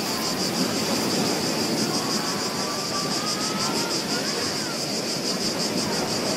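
Beach ambience recording: a steady wash of ocean waves on the shore, with a fast, even, high-pitched pulsing chirr over it.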